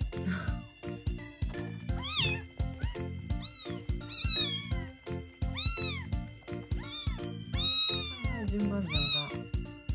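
A young kitten mewing about seven times, short high mews that rise and fall in pitch, one longer near the end, over background music with a steady beat.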